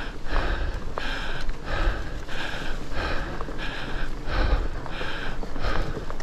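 Heavy, fast breathing of a rider inside a full-face helmet, right at the chin-mounted microphone, about two breaths a second, over a steady low rumble.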